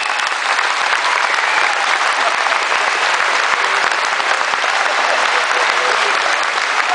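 A large concert audience applauding steadily in a theatre.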